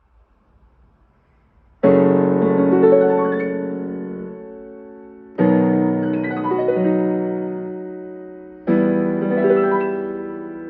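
Omnichord OM-250M electronic instrument playing three chords, each starting suddenly and fading away over a few seconds, over a faint low hum before the first one. This is a post-repair test of its chord keyboard and sound circuits.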